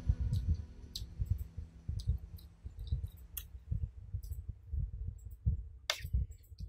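Close-up eating sounds: chewing with soft low thumps and small wet mouth clicks. A metal spoon clicks and scrapes against the plate, sharpest just before the end as it scoops rice.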